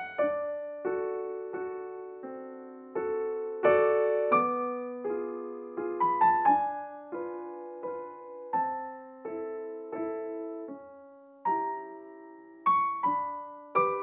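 Background music: a slow, gentle piano piece, single notes and chords struck and left to ring out and fade.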